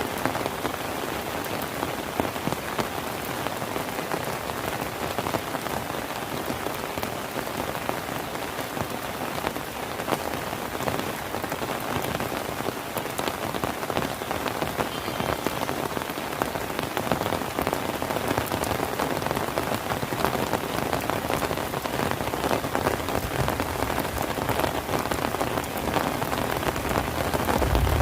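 Steady rain falling on surfaces, a dense patter of individual drops.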